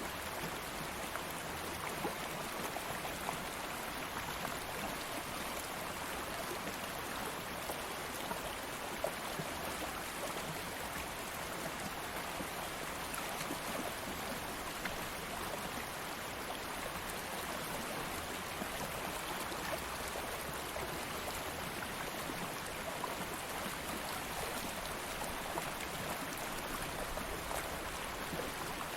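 Stream of water flowing steadily over rocks, a continuous rushing with small splashes and gurgles.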